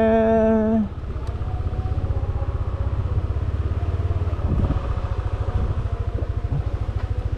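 Motorcycle engine running steadily while riding, a low rapid throb of firing pulses.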